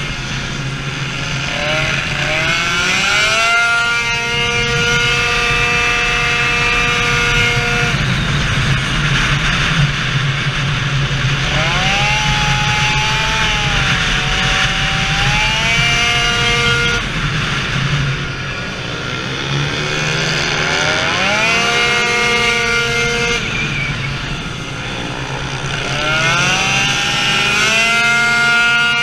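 Tuned 70cc two-stroke scooter engine (2Fast cylinder on a Minarelli block, HK expansion exhaust) at full throttle on track: its pitch sweeps up quickly, then holds a steady high note while the variator shifts up, and drops away when the throttle is closed. This happens several times.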